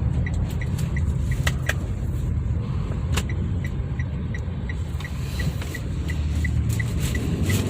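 Steady low rumble of a car heard from inside the cabin, with its indicator ticking evenly about three times a second. A few sharp clicks come in between.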